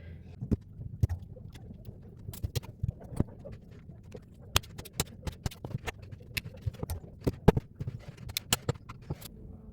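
Irregular light clicks and taps of small parts and hand tools being handled on a workbench, a couple of dozen in all, sharpest about seven and a half seconds in.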